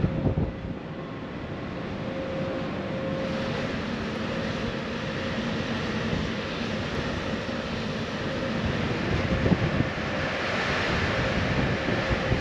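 Steady wind and ship's rumble on the open deck of a ferry at sea, with a faint steady hum under it and wind on the microphone.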